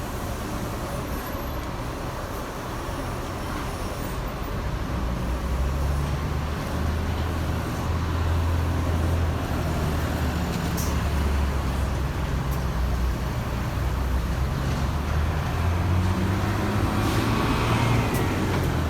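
Road traffic at a level crossing: car and heavy-vehicle engines running with a steady low rumble that builds about five seconds in.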